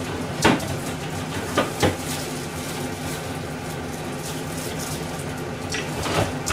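Kitchen clatter: a few light knocks of dishes or utensils, three in the first two seconds and two near the end, over a steady background hum.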